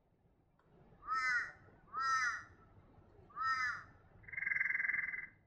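Torresian crow calling: three short arched caws about a second apart, then one longer, buzzy call near the end that cuts off suddenly.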